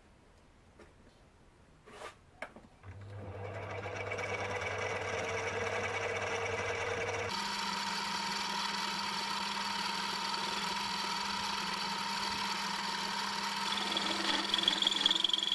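Small benchtop metal lathe switched on with a couple of clicks, its motor and spindle spinning up about three seconds in and then running steadily, the tone shifting abruptly about seven seconds in. Near the end the cutting tool starts taking a facing cut on the metal part, adding a higher tone and uneven louder peaks.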